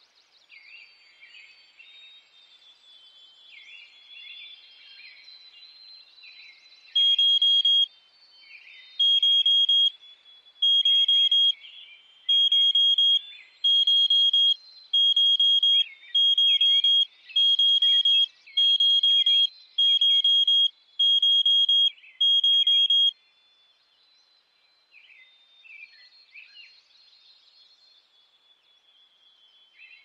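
Smoke alarm sounding a loud, high electronic beep about a dozen times, each beep nearly a second long, the gaps between them shortening toward the end. Birds chirp faintly throughout.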